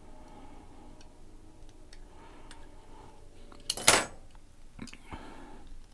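Faint handling clicks of small metal parts on a workbench, then one loud metallic clink just under four seconds in, as of a diecast part or tool set down on a hard surface.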